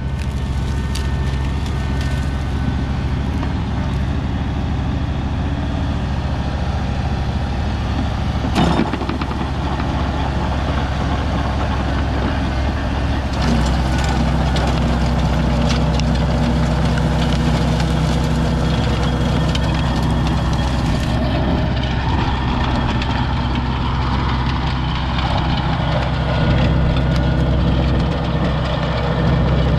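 Case DX40 compact tractor's diesel engine running steadily while it drives a rear rototiller through garden soil. The engine note deepens into a heavier, fuller drone a little under halfway through, and a single sharp knock sounds about a third of the way in.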